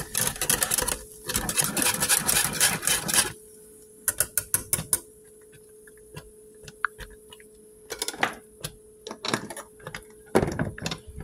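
A utensil stirring grits in a saucepan, scraping and clicking rapidly against the pot for about three seconds, then a few scattered knocks against the pan.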